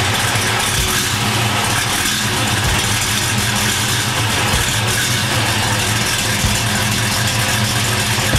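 1970 Camaro Z-28's 350 LT-1 small-block V8 idling steadily at the tailpipe just after start-up, with a brief low pulse about every two seconds.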